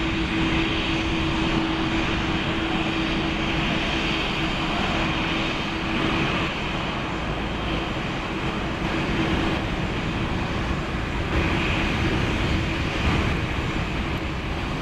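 Boeing 737 jet engines at takeoff thrust as the airliner lifts off and climbs away: a steady, even jet noise with a constant low hum underneath.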